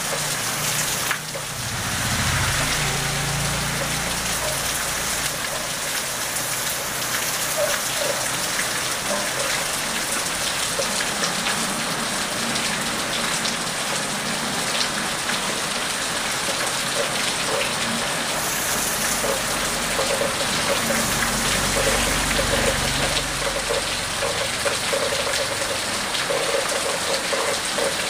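Steady heavy rain pouring onto wet pavement, an even dense patter of drops. A low rumble swells in briefly a couple of seconds in and again past twenty seconds.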